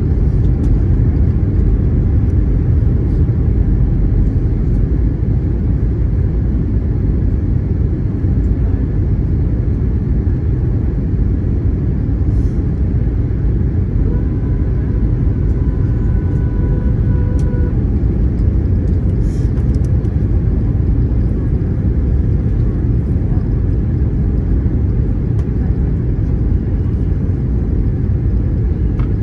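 Cabin noise of an Airbus A321neo on approach with flaps extended: a steady, loud low rumble of engines and airflow. A faint steady whine rises over it for about three seconds midway.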